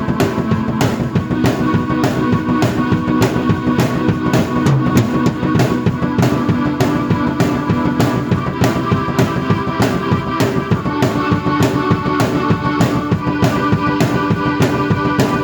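Drum kit and keyboard played together: a steady beat of kick drum, snare and cymbals over held keyboard chords.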